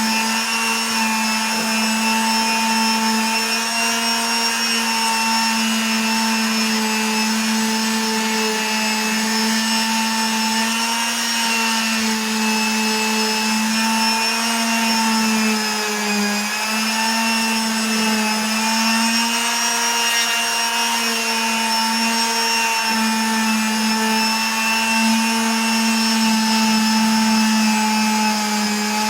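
Electric power tool motor running steadily with a constant hum and whine, its pitch sagging briefly about sixteen seconds in.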